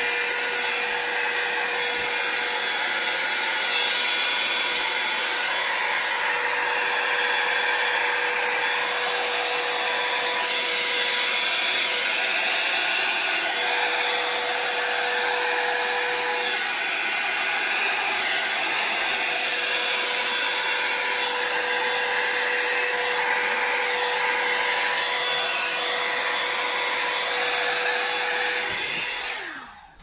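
Revlon hair dryer running on its high setting: a steady rush of air with a faint hum. It switches off near the end.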